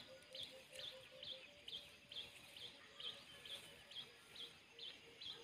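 Faint bird calls: a short high chirp repeated steadily about twice a second, with a lower short note repeating faintly beneath it.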